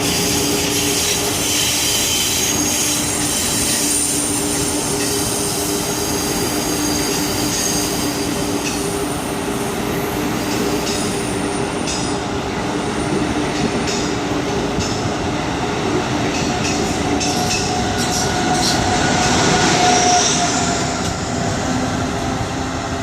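Amtrak Acela Express trainset rolling past as it pulls out of the station: a steady low hum with high wheel squeal. Wheels click over rail joints in the middle, the sound swells about twenty seconds in, then begins to fade.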